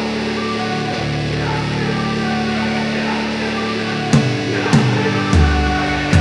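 Background rock music: sustained guitar notes, with drums and heavy bass coming in about two-thirds of the way through.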